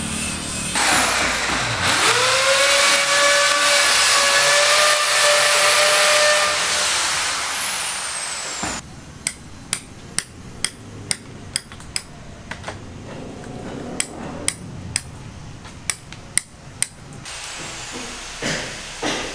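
A power tool spins up with a rising whine, then runs steadily for several seconds before cutting off abruptly. It is followed by a series of sharp strikes, about two a second, like hammering on construction material.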